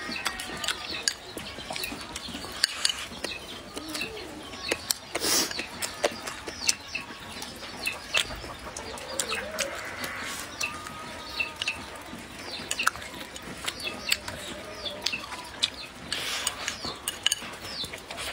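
Close-up eating sounds: chewing and many sharp clicks of chopsticks against a bowl. Behind them, chickens cluck and small birds chirp.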